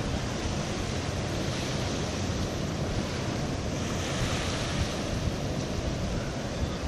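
Sea waves washing on a sandy lagoon shore, mixed with wind blowing on the microphone: a steady, even wash of noise.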